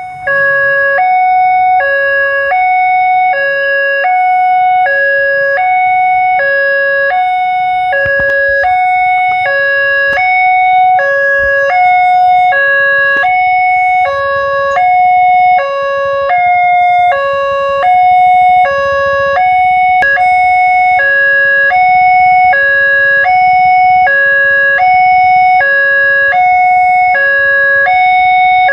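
Railway level-crossing warning alarm sounding a steady, loud two-tone signal, alternating high and low notes about twice a second, while the barriers are down: the signal that a train is approaching.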